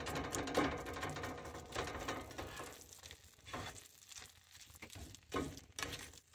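Spatula scraping and stirring a thick mashed-chickpea taco filling around a skillet in irregular strokes, with a faint sizzle underneath.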